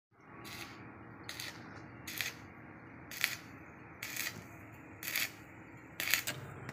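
Electric arc welding in short bursts, about once a second: each burst a brief crackling sizzle as the welder tacks steel body framing, over a steady low hum.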